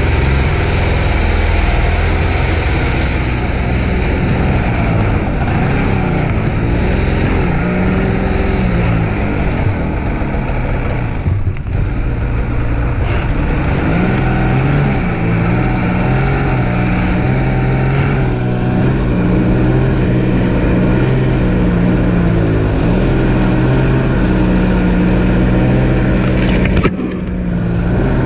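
Snowmobile engine running and moving off at low speed, its pitch rising and falling with the throttle; the sound drops briefly about eleven seconds in and again near the end.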